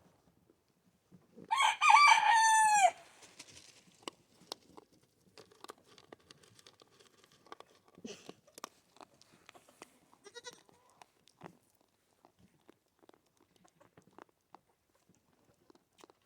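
A loud, wavering farm-animal call about a second and a half long, dropping in pitch at the end. After it come faint scattered clicks and rustles of a goat kid eating.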